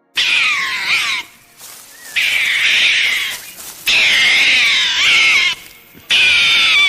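An animal calling: four loud, high calls of about a second or more each, with sliding pitch and short gaps between them.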